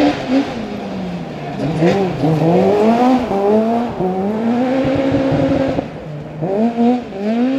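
Ford Fiesta S2000 rally car's naturally aspirated four-cylinder engine revving hard as the car slides through a loose-surface bend. The pitch climbs and drops again and again with throttle and gear changes, dips low about six seconds in, then rises quickly in short bursts.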